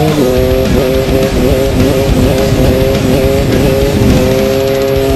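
Dirt bike engine held at steady high revs during a wheelie, its pitch dipping slightly now and then, over heavy wind noise. Rock music plays along with it.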